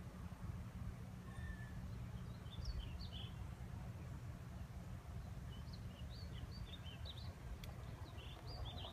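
A small bird chirping in short, quick notes: a brief run about two and a half seconds in, then a longer run from about six seconds on. Under it is a steady low outdoor rumble.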